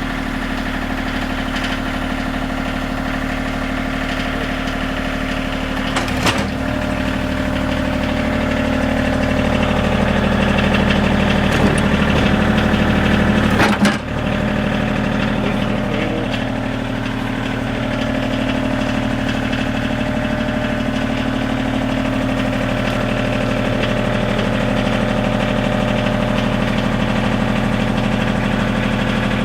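Bobcat CT2025 compact tractor's diesel engine idling steadily. It runs a little louder for a few seconds in the middle, and there are short clunks about six seconds in and again around twelve to fourteen seconds in.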